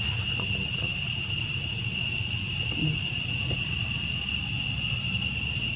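Steady, unbroken chorus of forest insects, a shrill drone held at several high pitches, with a low rumble underneath.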